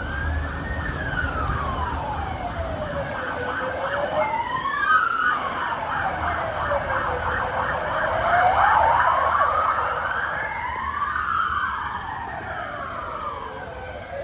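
Emergency vehicle sirens in wail mode, two of them rising and falling slowly out of step with each other, loudest in the middle and fading near the end as they pass.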